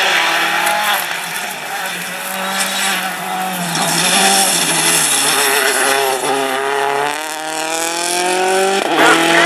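Rally cars accelerating hard through the gears at full throttle. The engine pitch climbs and drops back at each upshift, several times over.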